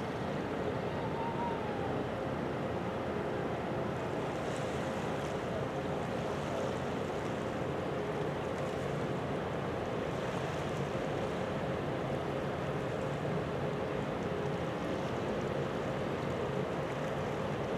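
Container ship's engines and machinery running, a steady hum with one constant tone over an even hiss.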